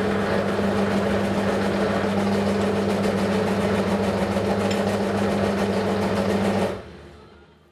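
Hafco Metal Master AL-340 metal lathe running steadily, its chuck spinning a gear blank while a twist drill bores the centre. The steady hum stops near the end and dies away over about a second.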